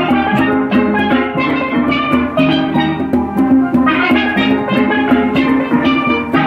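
Steel band of children playing steel pans, rapid ringing struck notes with a hand-drum beat underneath.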